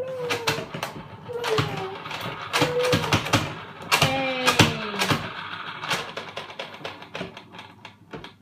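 Excited voices in drawn-out falling calls without clear words, over rapid clicking and clattering of plastic.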